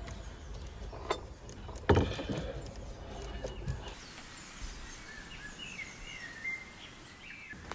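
Sharp clicks and a loud knock of metal bicycle drive parts being handled and fitted, followed by a quieter stretch with faint birdsong.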